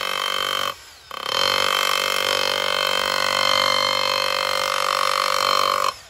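Bosch GBH 18V-34 CF cordless SDS Plus rotary hammer hammer-drilling into a concrete slab, running loud and steady. It stops for a moment under a second in and starts again, then cuts off sharply just before the end.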